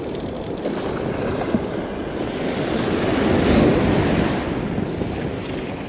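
Ocean surf washing in, with a breaking wave swelling to its loudest about three and a half seconds in. Wind rushes over the microphone.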